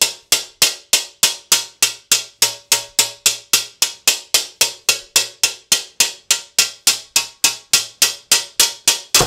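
Light, even tapping of a small ball-ended hammer on the back of a scored sheet of glass, about three and a half sharp taps a second, each with a brief glassy ring. The tapping runs the break along the score line.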